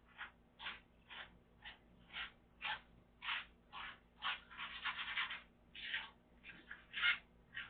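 Rhythmic scrubbing strokes, about two a second, with a quick flurry of strokes a little past halfway.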